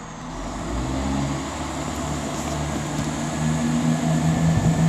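Class 170 Turbostar diesel multiple unit's underfloor diesel engines opening up to depart. A steady engine drone builds in loudness from about a third of a second in.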